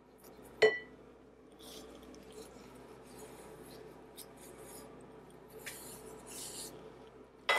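A single sharp, ringing clink of kitchenware against the glass mixing bowl about half a second in, then soft scraping and rustling as the last of the melted butter is scraped from the pan, with a louder clatter right at the end.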